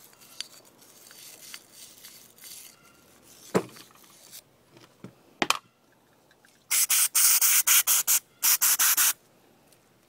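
A motorcycle brake caliper being rubbed and scrubbed clean: soft rubbing at first, two sharp clicks, then two loud bursts of rapid scratchy scrubbing strokes.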